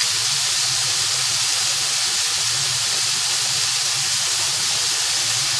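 Chopped tomatoes with onions, garlic and ginger sizzling steadily in hot mustard oil in a pan.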